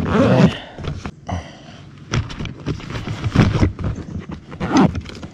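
Irregular knocks and clicks from handling a largemouth bass in a plastic kayak, as the fish is taken off a digital hanging scale and held up.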